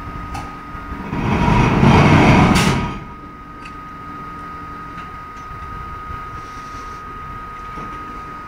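Large crawler mining shovel travelling on its tracks: a steady high whine under a low rumble. About a second in a much louder rumble swells for two seconds, ending in a sharp crack.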